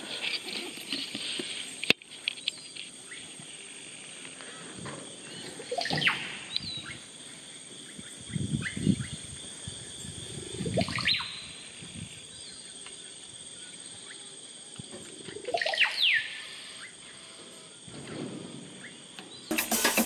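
Oropendolas calling three times, about five seconds apart. Each call sweeps upward and ends in a sharp, falling whistle, over a steady high-pitched hum. Drum music comes in just before the end.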